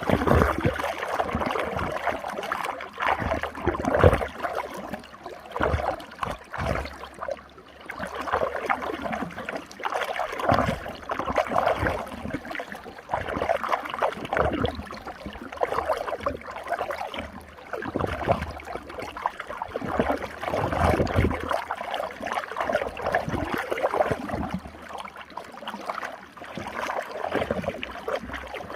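Running water swirling in a whirlpool, gurgling and splashing in irregular surges.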